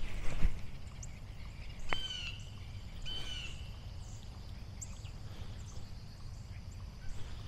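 Birds calling outdoors: two clear calls about two and three seconds in, with short high chirps scattered throughout. A thump right at the start.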